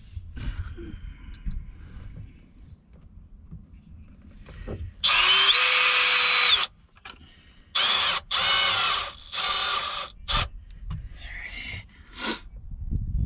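Power drill driving screws to fasten battery strap mounts into composite deck board: one run of about a second and a half, then three shorter runs in quick succession, with light handling knocks before them.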